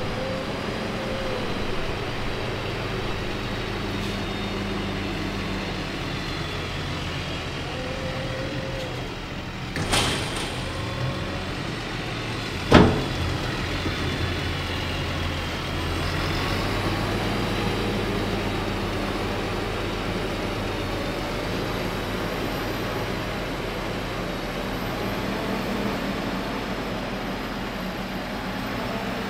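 Fendt tractor's diesel engine running steadily as it pushes chopped alfalfa up a silage pile with a front push blade. Two sharp knocks about three seconds apart near the middle, the second the loudest.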